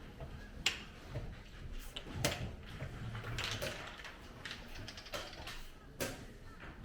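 Scattered sharp clicks and knocks, three of them louder than the rest, over soft rustling and handling noise.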